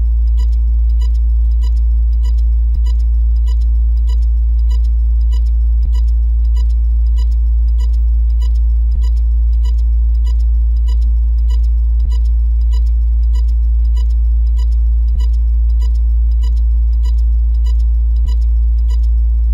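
A loud, steady low drone with a regular tick about twice a second over it, and a soft low thud about every three seconds.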